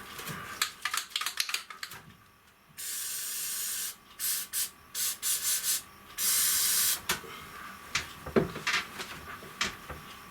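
Scraping and rustling of handling at first, then an aerosol spray can hissing as rivet heads are coated with sealant: one steady spray of about a second, a run of short quick squirts, then another spray of about a second. A few sharp knocks follow near the end.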